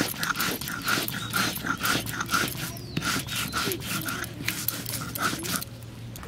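Stone roller rocked back and forth over a flat grinding stone (shil-nora), grinding rice into paste: a rhythmic rasping scrape of about three strokes a second, with a short pause midway, stopping about five and a half seconds in.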